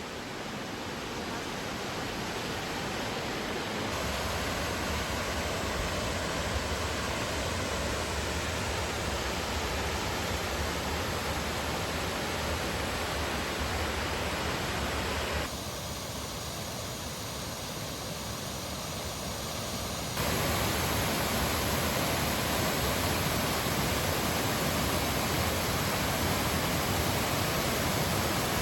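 Steady rush of water from a mountain gorge's stream and waterfalls. Its loudness and tone change abruptly three times.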